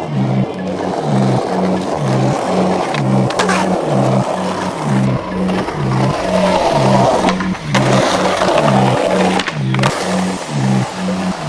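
Skateboard wheels rolling over pavement, with a few sharp clacks of the board a few seconds apart, over music with a steady repeating bass line.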